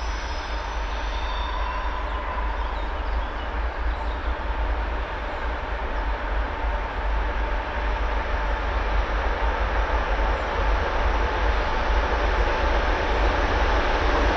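2M62K twin-section diesel locomotive working hard under load, its engines running with a steady drone and a faint hum in it, getting gradually louder as the train approaches. Heavy black exhaust shows the engines are under full power hauling a container train.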